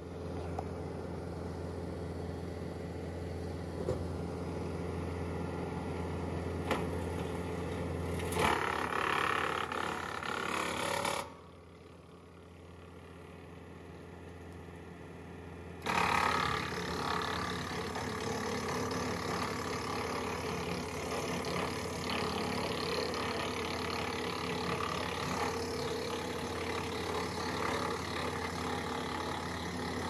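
Compact tractor running at steady speed, driving a Woodland Mills WC68 6-inch PTO wood chipper as freshly cut green branches are fed in. The sound grows louder while branches are chewed through, about a third of the way in and again from about halfway on, with a quieter stretch between.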